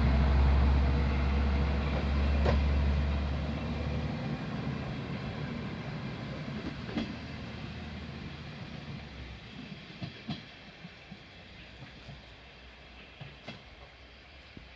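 Yodo Line diesel railcar moving away: a loud low engine rumble for the first four seconds, then the train sound fading steadily. A few sharp wheel clacks over rail joints come every few seconds, each fainter than the last.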